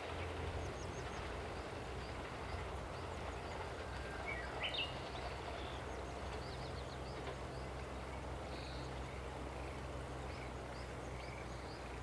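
Quiet countryside ambience: small birds chirping now and then over a faint, steady low rumble from the Series 87 Twilight Express Mizukaze diesel-hybrid train as it draws away into the distance.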